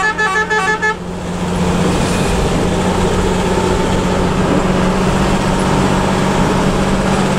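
A bus horn sounds a quick run of stepping notes for about the first second. After that the bus's engine drones steadily under road noise on the wet highway.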